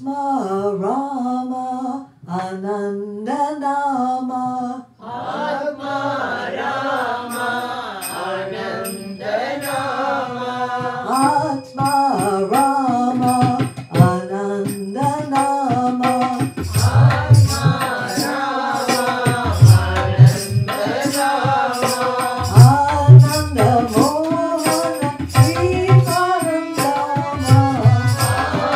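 Devotional bhajan singing: a lead voice sings a wavering melody alone at first, then harmonium and tabla join about five seconds in. Deep tabla bass strokes come in strongly from about halfway on.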